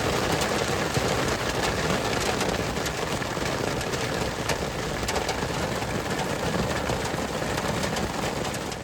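Heavy storm rain pelting a car's roof and body, a dense steady hiss packed with many sharp individual hits.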